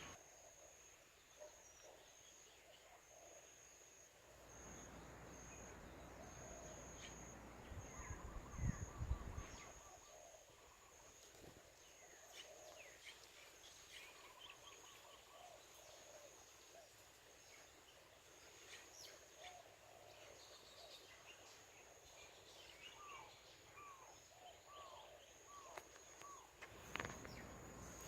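Faint outdoor ambience: scattered bird chirps and calls over a steady, high, slightly broken insect trill. A gust of wind rumbles on the microphone from about four to ten seconds in, loudest near nine seconds.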